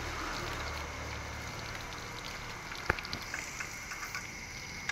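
Water from a hose spraying and pattering onto the fins of a bus radiator being rinsed clean, with one sharp knock about three seconds in and a few lighter clicks after it.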